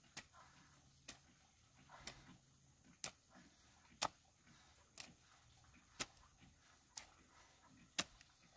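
Faint, regular ticking: nine short, sharp clicks about once a second, evenly spaced.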